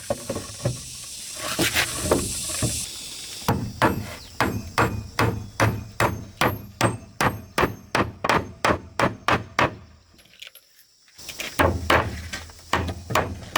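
Repeated hammer blows struck at a steady pace of about three a second, pausing briefly near the end before starting again. A hiss runs through the first few seconds.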